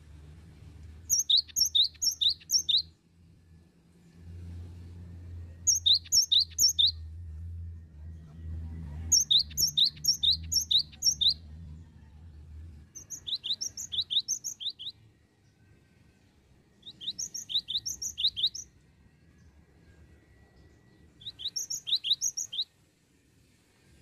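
Cinereous tit singing: six bursts of quick, repeated two-part whistled notes, each burst lasting one and a half to two seconds, with short pauses between. A low hum runs underneath until about halfway through.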